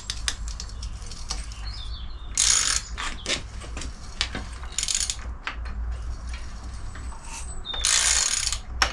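Socket ratchet clicking as the crankshaft of a VW T25's 1.9 water-cooled flat-four is turned over by hand to check it isn't seized. Three short rushes of noise come about 2.5, 5 and 8 seconds in. The engine turns with some compression, but not a lot.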